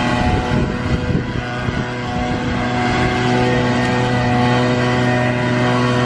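A large engine running at a steady speed, its pitch unchanging, with irregular wind rumble on the microphone.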